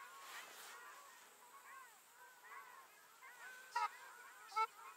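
A flock of waterfowl calling over water: many short rising-and-falling calls overlapping, with two loud honking calls near the end, a little under a second apart.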